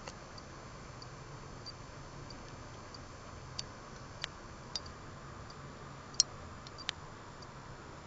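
Faint, regular ticking about every two-thirds of a second over a steady low hum, with a few louder sharp clicks in the second half.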